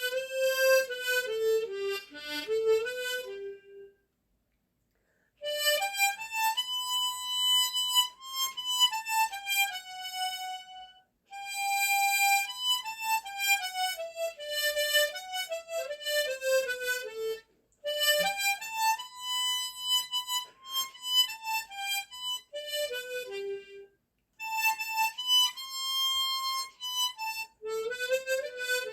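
Tremolo harmonica playing a slow melody alone, unaccompanied, in phrases separated by short breaks, the longest of them about four seconds in.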